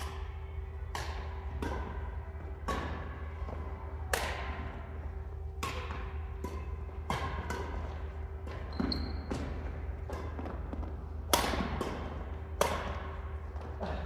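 Badminton rackets hitting a shuttlecock during doubles play: about a dozen sharp hits at uneven spacing, some in quick exchanges, with a brief high squeak about nine seconds in and a steady low hum underneath.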